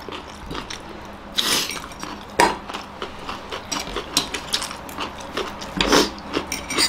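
Forks clicking and scraping on plates at irregular moments while two people eat noodles, with a few louder scrapes or slurps.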